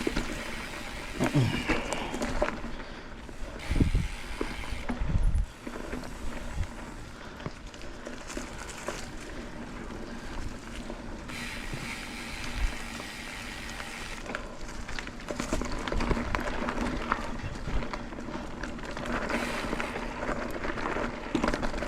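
Mountain bike riding a dirt trail: tyres rolling over dirt and loose rock, with a few heavy thumps in the first six seconds.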